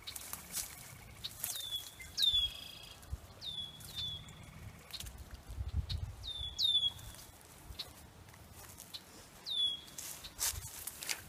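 A bird calls repeatedly, about eight short notes that each drop sharply in pitch and then level off. Under the calls is the rustle of a dip net being pushed through cattails and reeds, with a louder rustle near the end.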